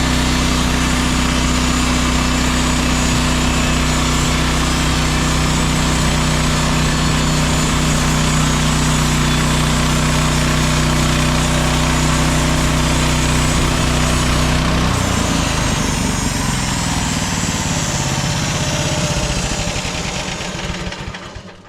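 Gas engine of a MechMaxx SM32 portable bandsaw sawmill running steadily, with a dense hiss above the engine note. About 15 seconds in the engine note changes and the whole sound fades away over the last few seconds.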